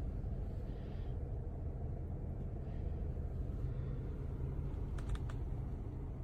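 Steady low rumble, with a quick run of three or four small clicks about five seconds in.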